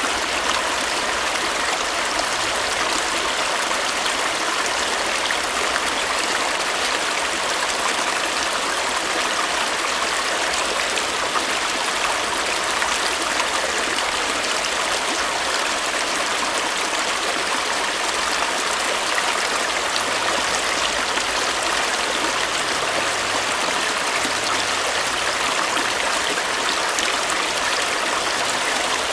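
Stream water flowing and splashing over rocks in a steady, unbroken rush.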